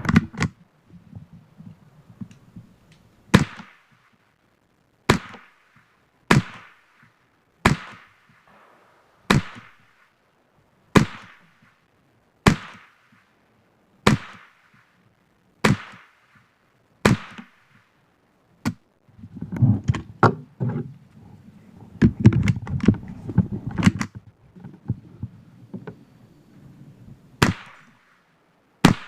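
Semi-automatic .22LR firearm firing Winchester .22LR rounds, one sharp shot with a short echo roughly every second and a half, about a dozen in a row. Then a few seconds of clattering and low rumble, and two more shots near the end.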